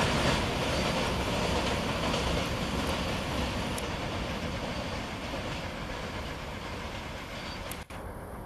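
Double-stack container freight train's wagons rolling on the rails, fading as the last wagons and the brake van move away, with a sudden break near the end.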